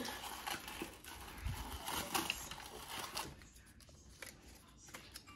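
Tissue paper crinkling and tearing as a hand pushes through the covered cup of a punchboard and pulls out a folded paper slip, followed by fainter rustling of the paper slip being handled.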